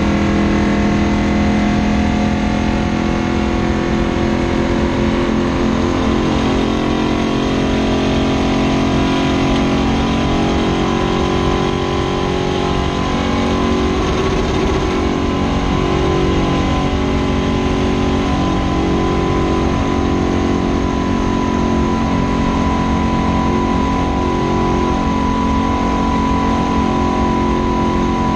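Stock car's V8 engine running flat out, heard from inside the cockpit: a loud, steady drone holding a near-constant pitch, with a slight dip about halfway.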